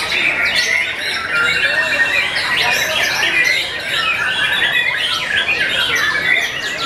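Caged white-rumped shamas (murai batu) singing together, a dense, unbroken chorus of fast whistled phrases and harsh squawking notes.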